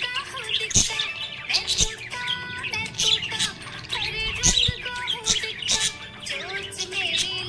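Budgerigar chirping and warbling in a fast, unbroken chatter of sharp, high chirps and short whistled glides.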